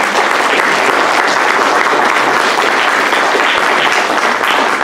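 Audience applauding steadily, a dense crowd of clapping hands.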